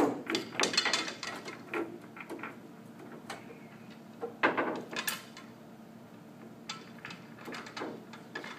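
Pool balls clacking against each other and the rack as they are gathered and racked for the next game of nine-ball: a sharp knock at the start, then bunches of quick clicks about a second in and again halfway through, with a few lighter clicks near the end.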